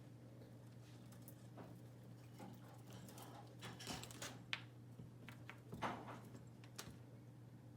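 Kittens moving about on a floor: a few faint, scattered taps and soft rustles over a steady low hum.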